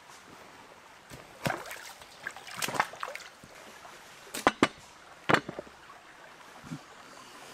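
Three-legged cast-iron pot being lowered into a shallow stream: several sharp splashes and knocks, loudest a little past the middle, over the faint steady running of the stream.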